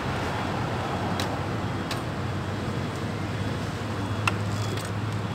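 Steady outdoor background rumble of road traffic, with a few short metallic clicks of a hex key on the head-cover bolts of a small four-stroke scooter engine, the loudest about four seconds in.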